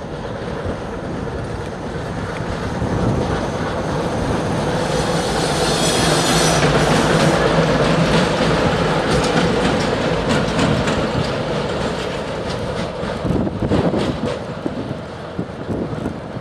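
A pair of ChME3 diesel-electric shunting locomotives passing close by, their six-cylinder diesels running, swelling to loudest midway and then falling away. Wheels knock over rail joints as the bogies roll past in the second half.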